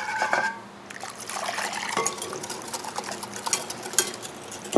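Warm milk and cream poured from a saucepan into a glass bowl of beaten eggs while a wire whisk beats the mixture, its wires clicking and scraping against the glass. A short ringing clink sounds at the start.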